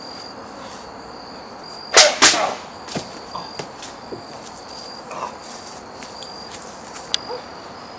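Crickets chirping in a steady pulsing trill. About two seconds in, two loud, sharp smacks a quarter second apart stand out, followed by a few lighter knocks and a click, from wrestlers grappling on grass.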